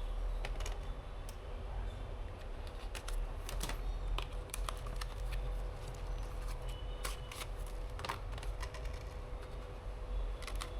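Irregular small clicks and taps of PC hardware being handled during assembly, over a steady low hum.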